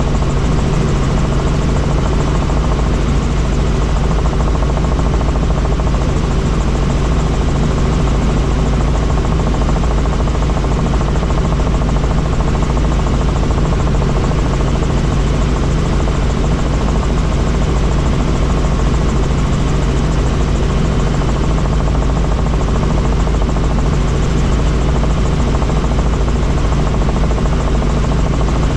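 Helicopter in flight, its rotor and engine noise running steady and unchanging, heaviest in the deep low end.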